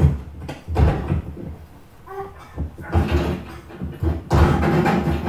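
Movie fight-scene soundtrack: a series of heavy thuds and bangs with scuffling as two people grapple against a wall and door.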